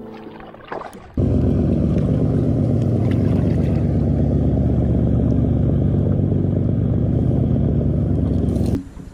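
A boat's engine running steadily, a loud low rumble that starts abruptly about a second in and cuts off near the end.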